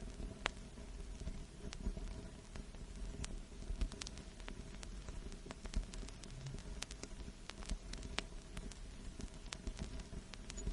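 Vinyl record surface noise: irregular crackles and pops, a few a second, over a steady low rumble and hiss.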